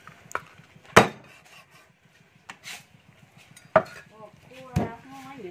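Steel cleaver chopping raw duck meat and bone on a wooden chopping block: a few irregular sharp knocks, the loudest about a second in and another strong one near the end.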